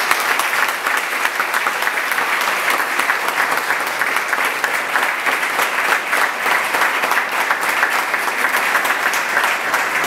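Audience applauding: a roomful of people clapping steadily.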